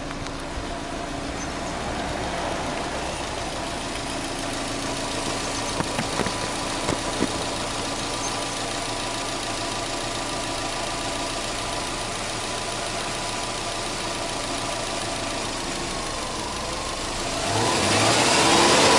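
Subaru EJ20 turbocharged flat-four engine idling steadily, growing louder near the end.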